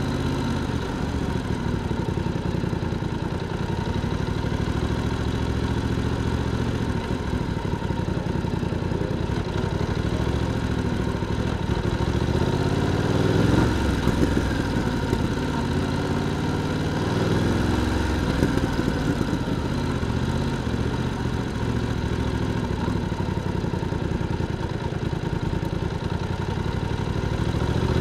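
BMW F900R's parallel-twin engine and exhaust running at low revs on the move, the revs rising briefly twice about halfway through.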